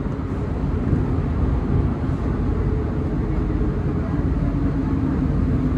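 Steady low rumble and hum inside an Alstom NS-93 metro car at a station stop. A faint steady tone comes in about a second and a half in.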